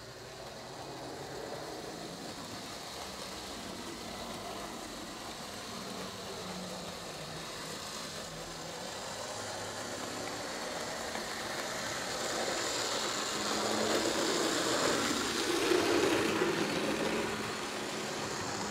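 HO-scale model of an NS Mat '54 'Hondekop' electric train running on track: a steady motor whir and wheel rumble that grows louder as it nears, loudest about two-thirds of the way through, then eases off a little.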